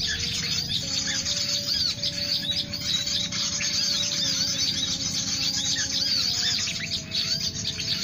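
Many small birds chirping, short arched chirps repeating over one another, over a steady low droning tone that shifts pitch a few times.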